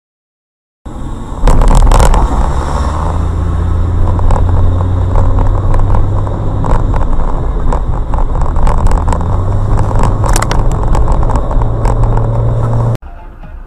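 A motor vehicle driving: a low engine drone that shifts pitch a few times, under road noise and many sharp knocks and rattles. It starts about a second in and cuts off abruptly near the end.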